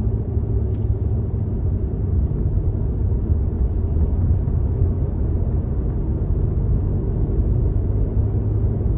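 Steady low rumble of road and engine noise heard inside the cabin of a moving car, with one light click about a second in.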